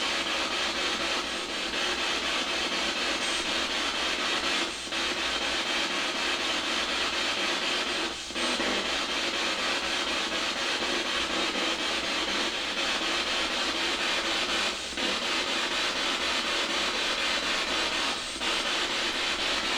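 Spirit box sweeping through radio stations: a steady hiss of radio static, broken by a few short dips every few seconds.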